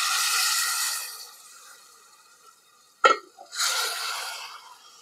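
Warm water poured into a steel pan of hot fried masala and cashews, hissing and sizzling as it hits, fading out about a second and a half in. Near three seconds a short knock, then a shorter sizzle as the curry is stirred with a ladle.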